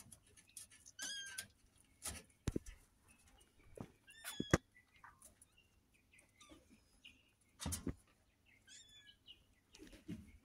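Faint, high-pitched chirping calls from a small animal or bird, in three short runs of two or three notes each, among scattered sharp clicks and knocks.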